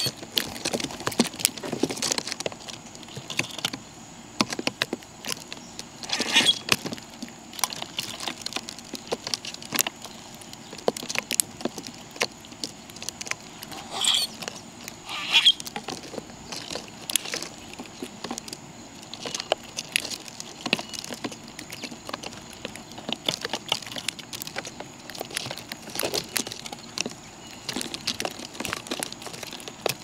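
Birds pecking at scattered seed: a dense, irregular patter of small taps and clicks, with two brief high calls about halfway through.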